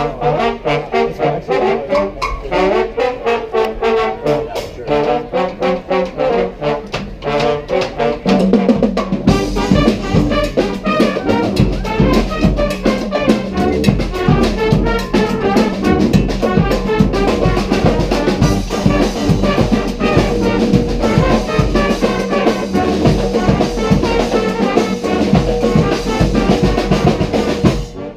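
Brass street band playing, with trumpets and trombones over a marching drum beat. About eight seconds in, a low held bass note comes in and the full band gets louder with dense drumming and cymbals. The music cuts off suddenly at the very end.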